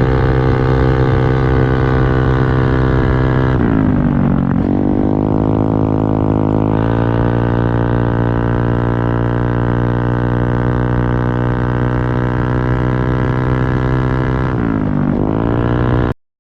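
Motorcycle engine running through an aftermarket open samlong exhaust with a drilled baffle, a steady drone whose pitch sags and comes back up twice. The sound cuts off abruptly just before the end.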